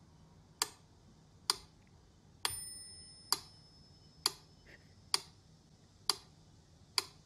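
Crisp, evenly spaced ticks about once a second, like a ticking clock; about two and a half seconds in, one tick is followed by a short bell-like ring that fades out.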